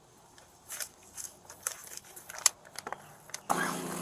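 Scattered rustling and light clicks of papers and small items being handled and sorted through a bag. A steady, louder hum comes in near the end.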